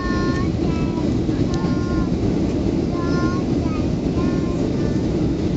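Steady low roar inside the cabin of a Boeing 757-28A climbing after takeoff: engine and airflow noise from its two Rolls-Royce RB211-535E4 engines, with faint indistinct voices over it.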